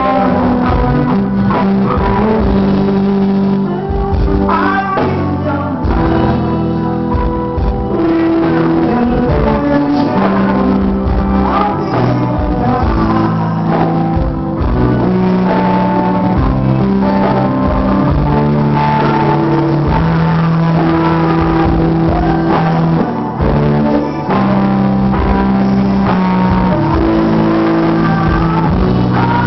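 Live band playing a song, with a singer at the microphone, loud and continuous.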